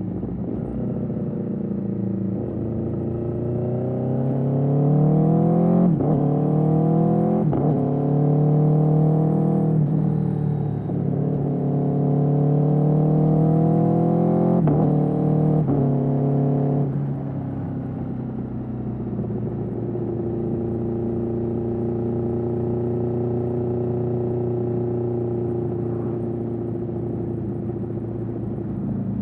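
Aprilia Tuono V4 motorcycle's V4 engine through an Austin Racing GP1R exhaust, accelerating hard with the revs climbing and dropping at several quick upshifts. About two-thirds of the way through it backs off and settles into a steady cruise at lower revs.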